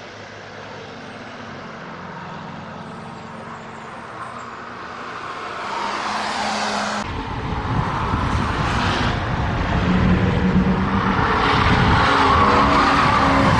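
Air-cooled flat-four engine of a Volkswagen T1 bus running steadily as it drives past, growing louder as it comes closer. After an abrupt cut about halfway through comes a louder passing van engine with another car close behind.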